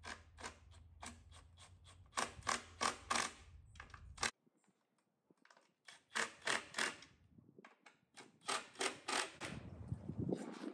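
Cordless drill-driver driving screws into a plywood board, heard as three runs of sharp, rapid clicks.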